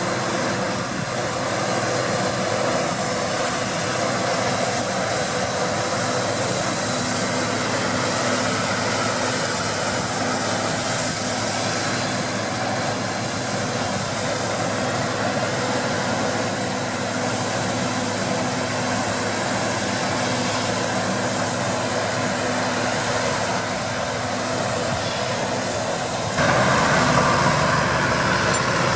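Deutz-Fahr 6060 combine harvester running steadily while harvesting wheat: a constant engine and threshing-machinery drone. About 26 s in the sound steps up suddenly, louder and fuller at the low end.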